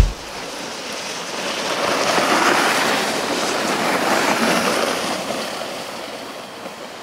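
Kneeling sled sliding fast over packed snow: a rushing hiss that swells over the first few seconds, then fades away toward the end.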